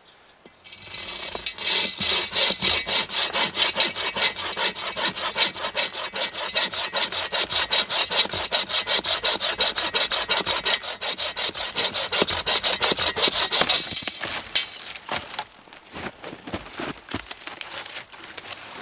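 Hand saw cutting through wood with quick, steady back-and-forth strokes, which stop about fourteen seconds in.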